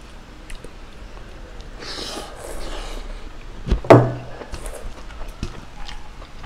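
Close-miked mouth sounds of a man eating with his hands: soft chewing, two breathy rushes about two seconds in, and one loud, short throaty sound, like a snort or grunt, about four seconds in.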